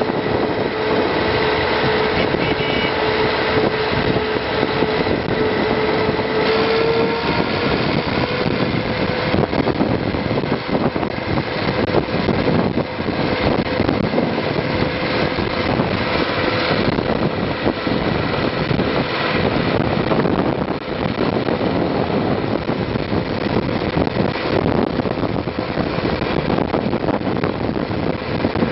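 Zetor tractor's diesel engine running as the tractor drives along at a steady speed, towing a trailer. A steady whine steps up slightly in pitch about seven seconds in, over a constant noise of wind, tyres and rattles.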